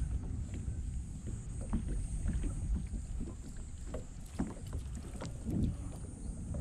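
Water lapping and splashing against a plastic sit-on-top kayak hull, with scattered small knocks and a low wind rumble on the microphone.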